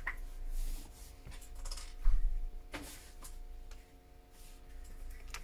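Small repair tools and iPhone parts handled on a workbench: scattered light clicks and scrapes, the loudest about two seconds in, over a faint steady hum.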